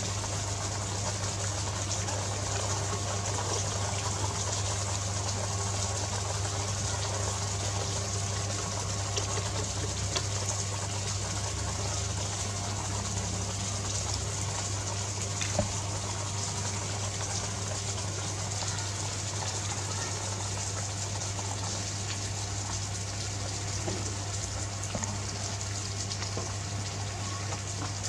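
Steady rushing noise like running water, over a constant low hum, with a faint click now and then.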